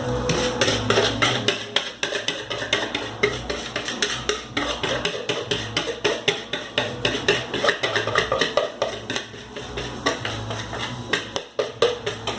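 A utensil scraping and knocking against a mixing bowl in quick, irregular strokes while cake batter is poured out into a baking pan.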